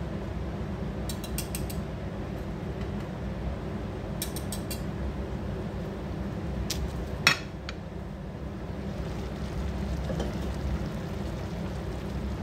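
Cookware clatter over a steady low rumble: two quick runs of light metal clinks from utensils on the pots. About seven seconds in comes a single loud clank as the lid comes off the big rice pot.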